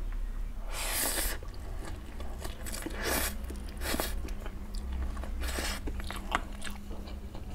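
Close-miked eating of stir-fried instant noodles: wet chewing with small mouth clicks, broken by several short hissing slurps as strands are sucked in, the first about a second in and others around three, four and five and a half seconds.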